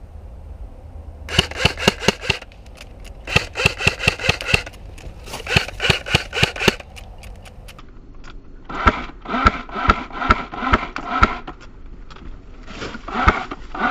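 Repeated bursts of rapid airsoft gun fire: five bursts of about a second each, roughly seven sharp cracks a second, with pauses between.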